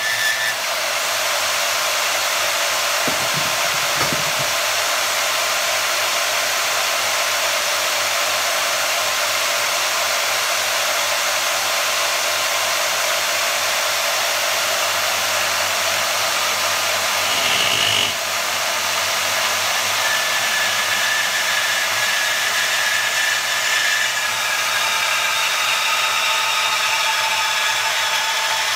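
Bauer 10-amp variable-speed portable bandsaw running steadily while its blade cuts through a metal tube and then an aluminium extrusion. The blade gives a short high whine about two-thirds of the way in and thin whistling squeals in the last few seconds.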